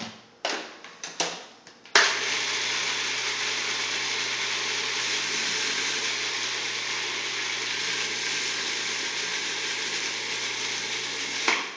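Food processor running steadily for about nine seconds, blending pesto, then switching off. A few clicks from its lid being fitted come just before the motor starts about two seconds in.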